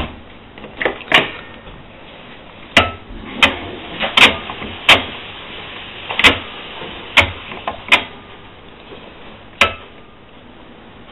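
A string of about ten sharp clicks and knocks at irregular intervals as the Zanussi DA 4341 dishwasher's door, latch and controls are handled, over a faint steady hum.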